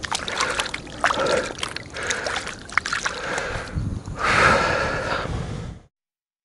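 Water splashing and trickling around a hand at the water's edge as a snakehead is released back into the channel, with a louder splashing stretch about four seconds in; it cuts off suddenly near the end.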